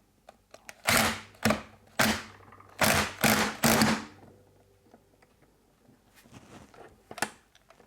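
A 14 mm socket tool turning the bolt of a gear puller to draw a part off a Moki 215cc radial engine's crankshaft: about six short, harsh mechanical bursts in the first four seconds, then quiet with small clicks and one sharper click near the end.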